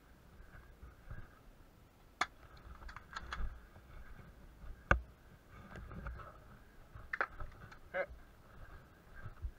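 Scattered airsoft gunshots: sharp, irregular clicks and snaps, some single and some in quick pairs, the loudest about five seconds in, over low rustling of movement.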